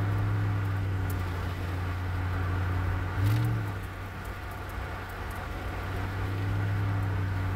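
Cabin sound of a Mercury Grand Marquis V8 driving: a steady low engine and road drone. About three seconds in, the hum briefly rises in pitch and gets louder, then settles back.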